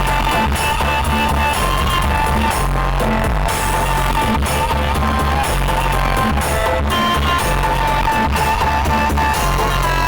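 Music played loud through a large 'sound horeg' carnival sound system during a sound check, with heavy bass notes in long held blocks under a melody line.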